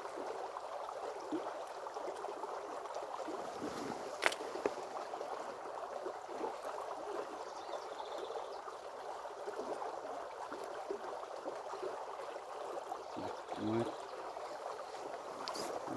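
River water flowing steadily, with a single sharp click about four seconds in.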